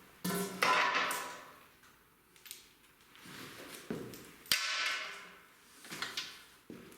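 A few bursts of clattering and scraping, as of tools or gear being handled and set down. The loudest comes about a third of a second in and rings on for about a second; a sharp click and a second long clatter come near the middle, and a shorter one comes near the end.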